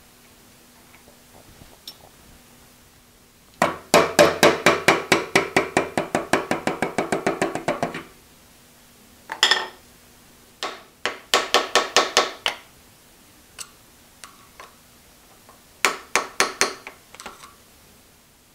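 Quick runs of hammer taps on steel, about five a second and ringing, used to drive the ball-crank handle off a milling machine's lead screw. There is one long run, a single blow, then two shorter runs.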